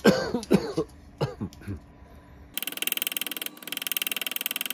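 A few brief vocal sounds, then, from about halfway, a rapid, even run of light metal taps: a small pointed body hammer, a reground cobbler's hammer, tapping dings out of a stainless steel drip rail molding laid against a bench vise.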